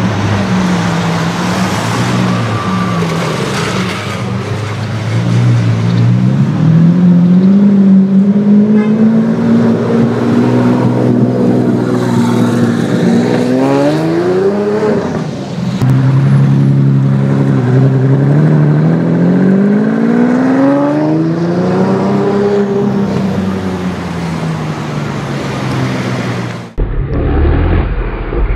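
Twin-turbo V12 of a Mansory Carbonado Apertos (a tuned Lamborghini Aventador) accelerating in traffic. Its pitch climbs slowly, drops sharply, climbs again and then falls away. Near the end the sound cuts abruptly to a deep, steady engine rumble.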